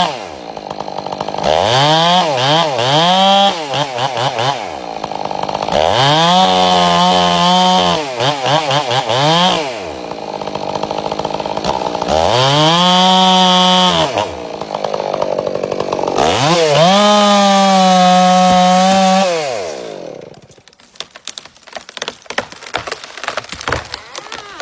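Chainsaw revving up again and again, held at full throttle for two to four seconds at a time as it cuts through wood, and dropping back between cuts. About twenty seconds in the engine sound dies away, leaving a run of sharp clicks and knocks.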